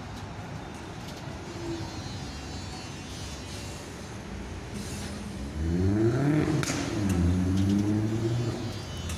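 Melbourne Z-class tram pulling away. Its traction motors give a whine that rises in pitch about halfway through and then holds steady, over the rumble of the wheels on the rails.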